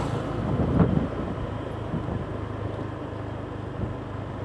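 A vehicle's engine running steadily while on the move, with road and wind noise and a louder bump about a second in.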